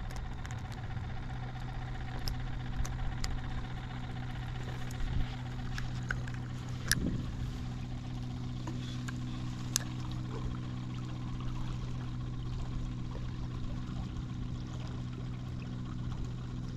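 A steady engine hum holding one low pitch throughout, with a few short sharp clicks scattered through the first ten seconds.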